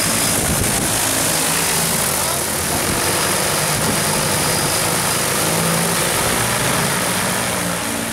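DJI Agras T40 agricultural drone in flight, its rotors giving a steady, loud whir with a strong high hiss, while it spreads granular fertilizer.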